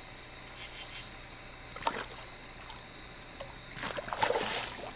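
A hooked flathead catfish splashing at the water's surface beside the boat: one short splash about two seconds in, then a longer, louder thrashing splash near the end.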